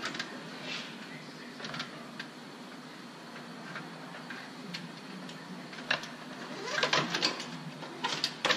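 Hands routing electrical wire through a pickup's engine bay: scattered plastic clicks and rustles, with a busier cluster of clicks and rattles about seven seconds in, over a steady low hum.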